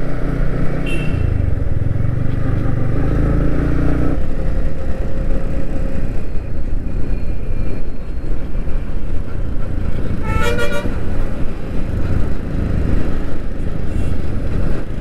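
Yamaha MT-15 motorcycle's single-cylinder engine running on the move, with wind and road noise; a vehicle horn honks once, briefly, about ten seconds in.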